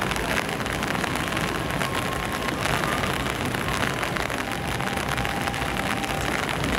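Heavy rain falling steadily: an even hiss of drops on wet pavement.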